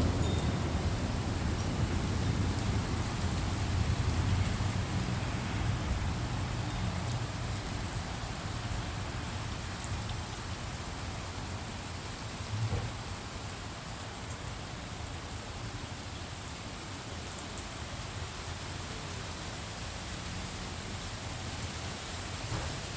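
Steady rain falling during a thunderstorm, with a low thunder rumble dying away over the first several seconds. A single brief thump comes about halfway through.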